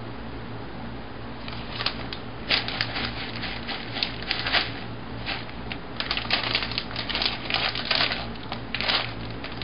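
Irregular light clicks and taps from kitchen food preparation, sparse at first and coming faster from about six seconds in, over a steady low hum.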